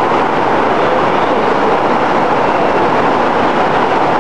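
Heavy rain pouring down, a loud, steady hiss that never lets up.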